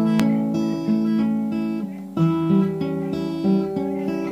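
Acoustic guitar being fingerpicked: a slow melody of single plucked notes, each left to ring over the next.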